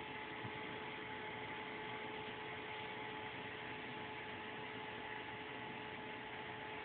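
Steady hiss with a faint, steady electrical hum and no distinct events.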